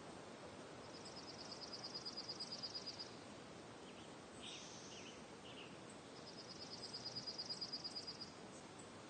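Outdoor nature ambience: a steady soft hiss with a high, rapid trill that comes twice, each about two seconds long and swelling in loudness. A few short chirps fall between the two trills.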